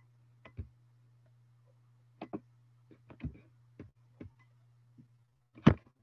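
Scattered, irregularly spaced clicks and knocks over a steady low hum, with the loudest knock near the end.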